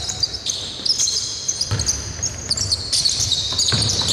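Basketball bouncing on a hardwood court, mixed with the short high squeaks of players' sneakers as they run and cut, and a couple of sharper thuds.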